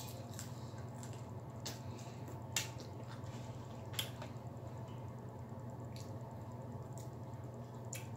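Eating crispy fried chicken wings: irregular sharp crunches and mouth clicks about once a second as the breaded skin is bitten and chewed, the loudest about two and a half seconds in, over a steady low hum.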